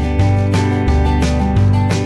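Background instrumental music: strummed acoustic guitar over a bass line, with a steady beat.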